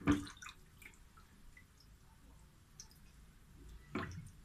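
Wet handling of raw rabbit meat in a bowl of water: a sudden splash at the start, faint drips and squishes, then another splash about four seconds in.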